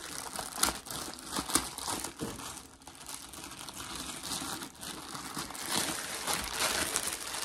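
Clear plastic wrapping crinkling and crackling as a rolled canvas is handled inside it, with irregular sharper crackles.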